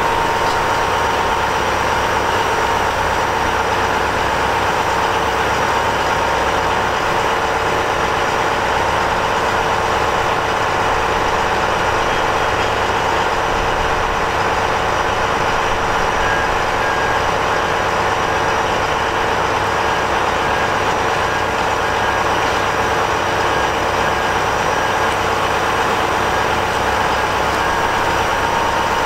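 Caterpillar 395 hydraulic excavator's C18 diesel engine running steadily, with a steady whine over it.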